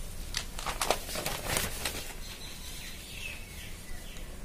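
Notebook paper pages being turned by hand, a few quick rustles and flaps of paper, the loudest about a second in and again at a second and a half.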